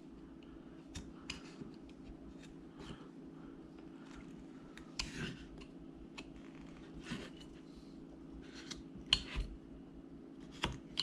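Carving knife slicing and paring small cuts in a wooden figure: faint, irregular short snicks and scrapes, a few seconds apart, over a low steady room hum.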